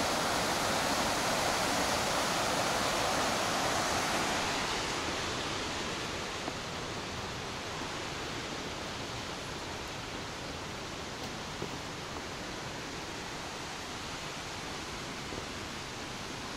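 Mountain stream rushing over rocks in a gorge below: a steady, even rush of water that grows fainter after about five seconds.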